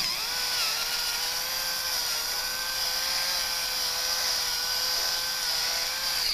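Battery-powered electric pepper mill grinding black pepper: a steady, high motor whine with grinding hiss. It dips slightly in pitch under a second in and cuts off sharply at the end.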